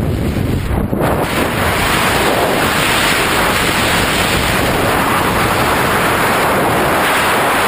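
Loud, steady rush of freefall wind blasting over a hand-held camera's microphone during a tandem skydive. It sets in about a second in, as the jumpers clear the aircraft door, and takes over from the low rumble heard at the door.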